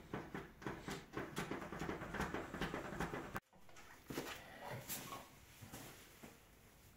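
Paintbrush strokes, the bristles rubbing back and forth on a wall in quick, irregular scratchy passes. They break off abruptly a little after three seconds in, then go on fainter and sparser.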